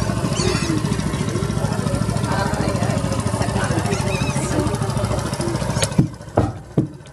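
An engine running steadily with a fast, even throb, cutting off suddenly about six seconds in, followed by a few short knocks.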